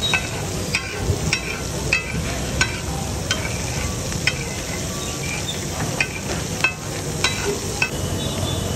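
A metal spatula scraping and clinking against a flat tawa griddle as a sizzling masala is stirred and spread on it. The sharp clinks come irregularly, about one or two a second, over a steady sizzle, and stop near the end.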